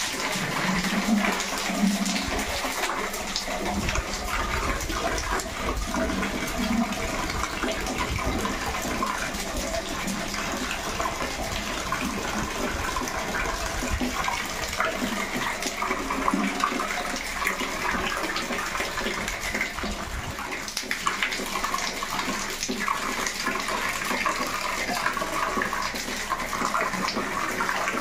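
Steady stream of water pouring out of an electric water heater's outlet pipe and braided hose and splashing onto a tiled floor as the tank is drained and flushed out.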